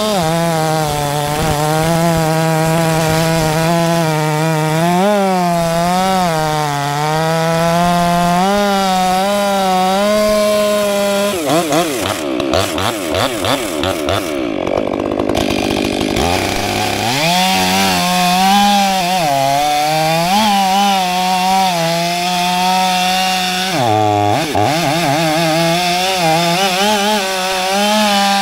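Stihl 500i chainsaw running under load as its 28-inch bar and full-complement Stihl RS chain cut through hardwood logs, the engine note sagging and recovering as the chain bites. Near the middle the note breaks up and wavers for a few seconds, then steady cutting resumes.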